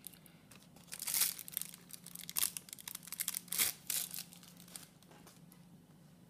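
Crinkling and rustling of something being handled: a run of short crackles starting about a second in and dying away near five seconds.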